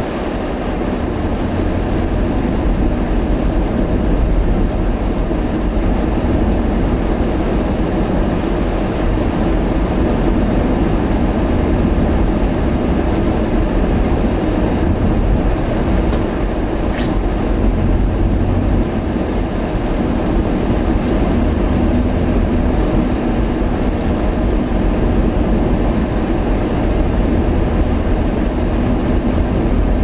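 Steady low rumble of a vehicle driving on a snow-covered highway: road and engine noise mixed with a rushing hiss.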